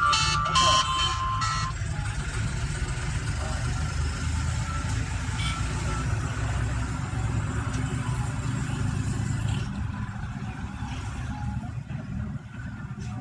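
A mobile phone's ringtone playing through its newly fitted loudspeaker, in rapid pulsing electronic notes that cut off about a second and a half in. A steady low rumble like road traffic follows.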